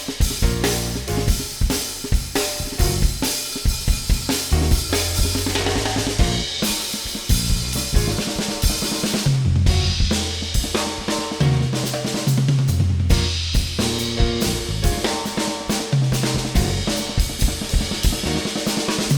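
Instrumental band passage with no vocals: a drum kit playing a busy, steady groove of kick, snare and cymbals over long held bass notes and sustained synthesizer and keyboard chords.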